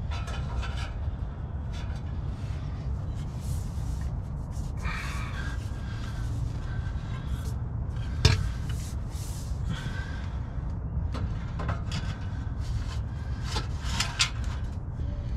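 Scraping, rubbing and clunking of a metal MBRP exhaust muffler being handled and fitted onto the exhaust pipe under a pickup truck, with a sharp knock about eight seconds in. A steady low rumble sits under it.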